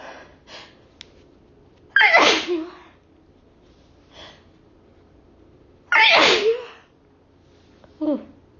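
A woman sneezing, set off by chhinkni sneezing powder: two loud sneezes about four seconds apart, then a smaller third sneeze near the end.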